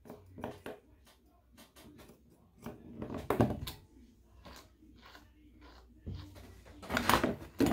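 Grooming scissors snipping at a small dog's facial fur, a run of quick short snips. Two louder rubbing noises come about three and seven seconds in.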